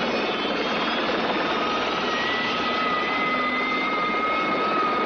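Helicopter turbine engine and rotor running at full power during take-off: a steady dense roar, with a high whine that comes in about two seconds in and rises slightly.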